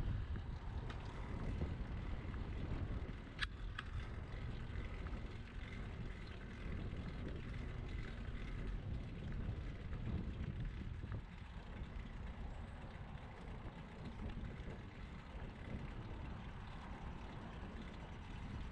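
Ride noise from a bicycle rolling along a paved cycle path: a steady low rumble of wind on the microphone and tyre noise, with a couple of sharp clicks about three and a half seconds in.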